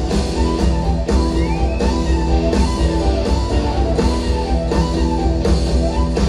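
Live rock band playing: electric guitar and drum kit over bass and keyboards, with a steady beat, recorded from the audience in a concert hall.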